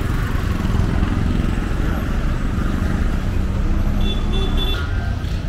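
Street traffic: a steady low rumble of engines going past, with a few short faint higher tones about four seconds in.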